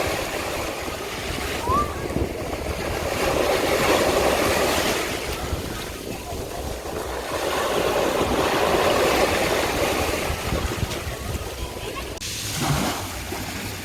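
A steady rushing noise that swells and fades over a few seconds at a time, with voices in the background.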